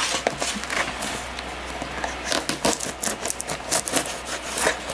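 Folding pocketknife blade scraping and slicing along packing tape on a cardboard box, with the box being handled: a run of short, irregular scrapes and rubs.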